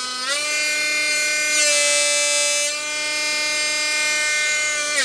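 Dremel Stylo rotary tool running at its top speed setting, a steady high motor whine with a buzzing vibration from its loosely fixed rear casing, which is pretty loud. The pitch steps up slightly just after the start as the speed switch goes from 4 to 5, and the sound stops abruptly near the end.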